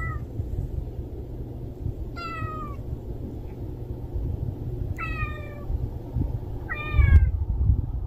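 Stray cat meowing: three short meows about two to three seconds apart, each falling in pitch, after the tail of one at the very start. A low rumble runs under them, loudest about seven seconds in.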